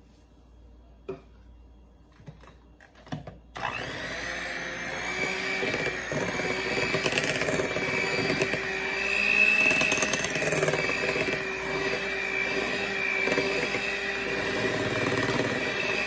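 A few light knocks, then about three and a half seconds in an electric hand mixer switches on and runs steadily with a constant whine, its beaters whirring through banana bread batter in a glass bowl.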